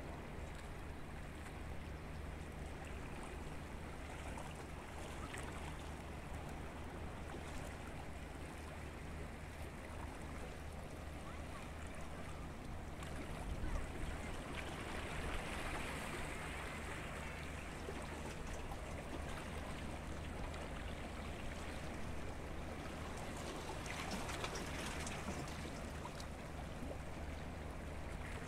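Small waves lapping and washing against the rocks of a stone breakwater, a steady wash of water over a low rumble, swelling louder about halfway through and again briefly near the end.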